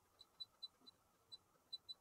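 About seven faint, very short high beeps at uneven intervals: touchscreen key-press tones from a Brother ScanNCut SDX325 as a Wi-Fi access code is typed in.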